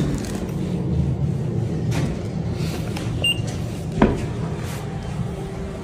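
Motorised revolving security door at a card-access entrance, running with a steady low hum and a few clicks, and a short electronic beep about three seconds in from the card scanner.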